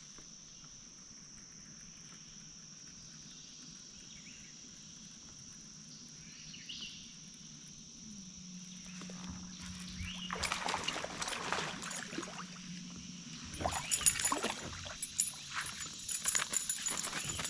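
Insects buzzing in a steady high-pitched chorus. From about halfway, irregular crackling and clicking noises come and go and are the loudest sounds.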